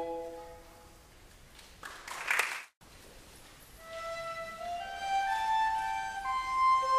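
Instrumental background music. One passage of sustained notes fades away in the first second, and a short burst of noise about two seconds in cuts off into a moment of dead silence. A slow melody of long held notes starts about four seconds in.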